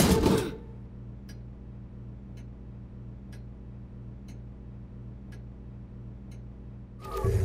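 A clock ticking about twice a second over a steady low hum. A short rush of noise comes at the very start, and a louder burst of noise near the end.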